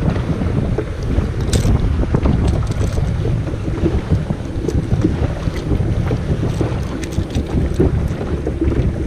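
Strong wind buffeting the microphone in a steady low rumble, with a few faint clicks scattered through it.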